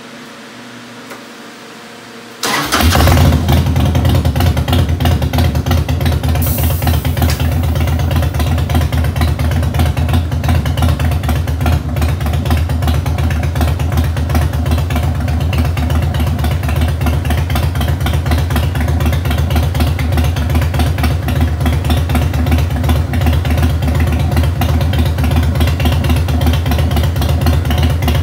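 A big-bore Harley-Davidson Twin Cam V-twin (1550 kit, 211 cams, Vance & Hines exhaust) starts about two and a half seconds in. It is a little louder for the first second or so, then settles into a steady idle with a quick, even pulsing beat.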